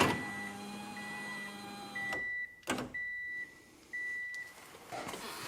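Subaru power window motor running for about two seconds and stopping with a click, driving a regulator gear that has several teeth broken off. A car's warning chime beeps about once a second throughout.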